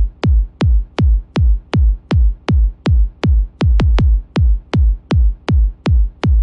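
Electronic techno music driven by a drum-machine kick drum on every beat, each hit a quick downward pitch sweep into the deep bass, about two and a half to three hits a second, with a brief double hit near the middle.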